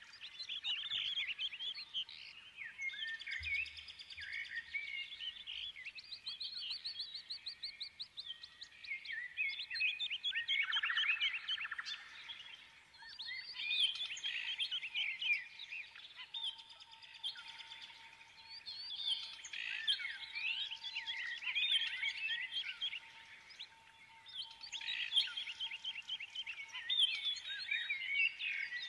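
Birds singing: a dense run of high-pitched chirps, quick trills and sliding whistles with almost no pause.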